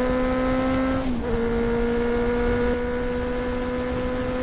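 Motorcycle engine running at a steady speed while riding, a steady droning tone that briefly dips in pitch about a second in and then carries on.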